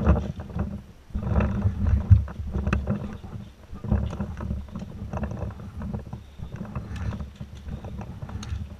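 Wind rumbling on a head-mounted camera's microphone in uneven gusts, with scattered sharp clicks and knocks as the player moves.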